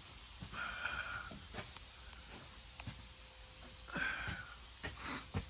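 Two faint breaths close to the microphone, one about half a second in and one about four seconds in, over a low steady hiss with a few light clicks.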